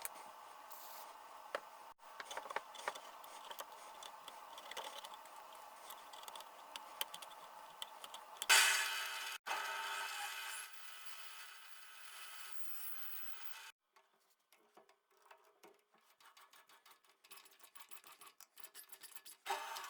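Small clicks, taps and rattles of parts and tools being handled, with a louder stretch of scraping noise about eight and a half seconds in that lasts around two seconds.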